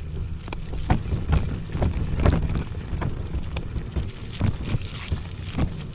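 Wind rumbling on the microphone of an electric scooter being ridden over a rough track, with irregular knocks and rattles as it jolts over bumps.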